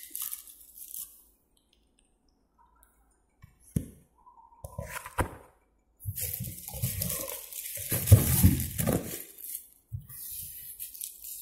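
Plastic packing wrap and a cardboard box rustling as the mixer grinder's parts are handled and unpacked, with a few sharp knocks and clinks in between.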